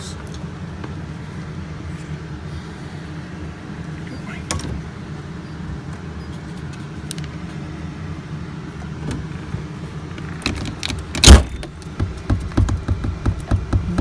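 Wanderlodge WB bus entrance door swung shut and latching onto its new striker bolt with one loud slam about eleven seconds in, followed by a run of quick light knocks. A steady low hum runs underneath.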